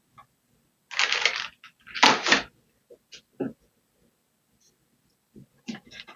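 Parts and packaging of a 3D printer kit being handled: two bursts of rustling and clatter, about one and two seconds in, then a few scattered clicks and a short clatter near the end.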